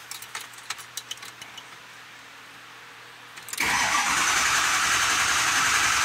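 A few light clicks, then about three and a half seconds in the starter suddenly begins cranking the 2005 Ford F-250's 6.0L Powerstroke V8 diesel steadily, and it does not catch. It is a crank-no-start: the high-pressure oil system is not building enough injector control pressure, with the regulator commanded nearly fully closed.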